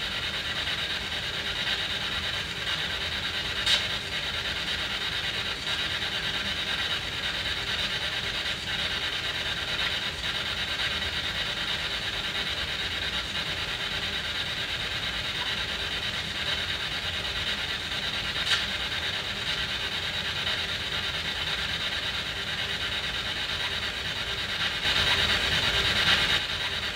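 P-SB7 spirit box sweeping the radio band, a steady rush of static with two sharp clicks. Near the end it gets louder for a moment, a fragment that the ghost hunters take for a spirit reply saying "she's coming".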